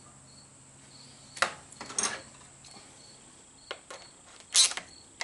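Hand tools clattering: a screwdriver is picked out of a toolbox and set down on top of the batteries, a few sharp clicks and knocks with the loudest near the end. A faint high chirp repeats about twice a second behind it.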